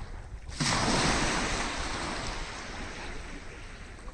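Sea waves on a beach: a wave breaks suddenly about half a second in, and its wash slowly dies away.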